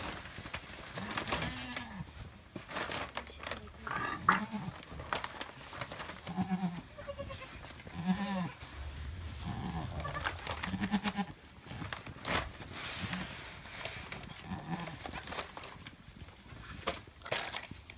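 Alpine goat doe making short, low bleats over and over, one every second or two, the soft calling a doe gives just after kidding. Between the calls come rustling and handling noises in the bedding.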